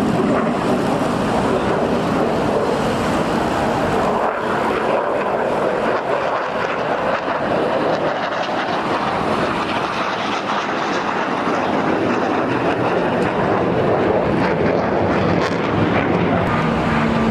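Military aircraft in flight at an air show: a steady, loud rushing engine noise with no break.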